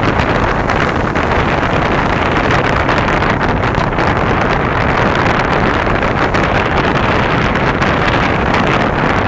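Steady wind rumbling on the microphone: a constant, even roar with no separate bangs standing out.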